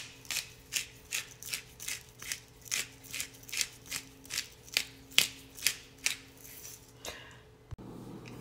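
Hand-twisted pepper mill grinding black peppercorns: a dry crunching rasp with each twist, about two and a half twists a second, dying away about six and a half seconds in. A faint steady hum runs underneath.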